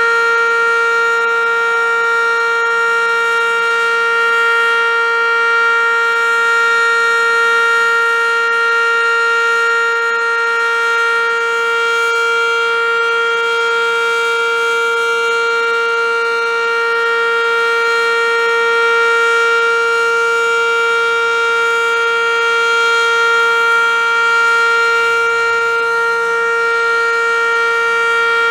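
ASC OM-117 (ACA Banshee) outdoor warning siren sounding a steady alert tone during a routine test: one loud, rich tone with many overtones that holds the same pitch throughout, swelling only slightly in loudness.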